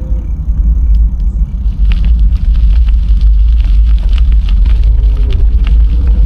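Wind buffeting the microphone of a camera riding on a moving bicycle: a loud, steady low rumble. From about two seconds in, a quick crackle of small clicks joins it.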